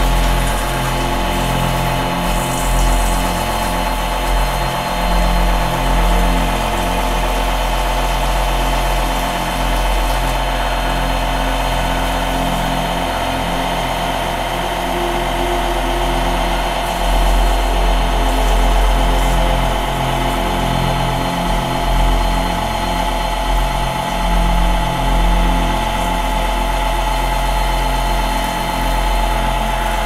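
A radio-controlled model truck's simulated diesel engine idling steadily, with a few slight swells in level.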